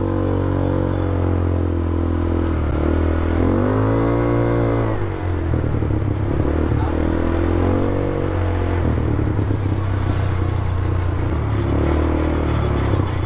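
A new 200cc ATV engine running under gentle throttle, its note rising and falling twice, about four and eight seconds in. The acceleration is kept mild because the engine is still being broken in.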